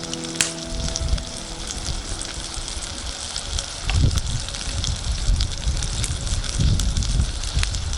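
Hamburg steak sizzling in a skillet: a steady hiss broken by sharp spits and crackles, with low rumbles about halfway through and again near the end.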